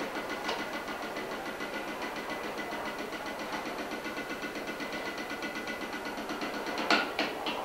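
A fast, even rattling from a felt-headed mallet worked against an experimental percussion instrument, with a few sharper strikes near the end.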